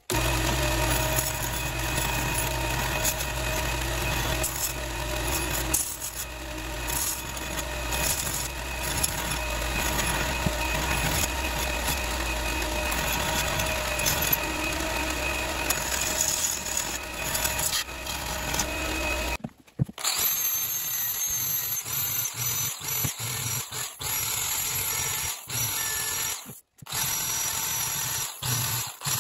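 Belt grinder running with steel being ground against the belt, a steady motor hum under the grinding. About twenty seconds in, an electric drill fitted with a sanding drum takes over, sanding the steel with a thin high whine and stopping briefly several times.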